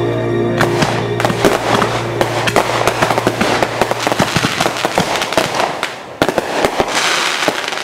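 Fireworks going off in dense, irregular crackling and popping, over music whose held low notes fade out about three seconds in.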